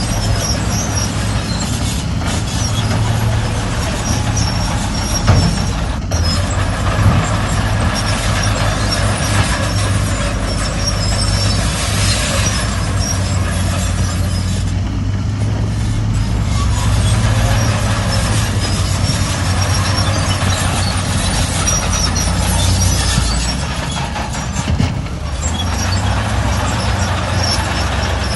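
Heavy diesel earthmoving machinery running steadily, its engine a continuous low drone, with brief high squeaks now and then and a couple of sharp knocks a few seconds in.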